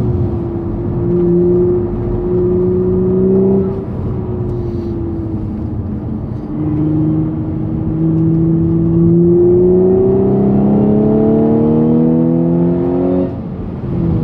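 Audi S4 engine heard from inside the cabin, rising in pitch under acceleration, easing off about four seconds in, then pulling for several seconds with the pitch climbing steadily before it drops sharply near the end.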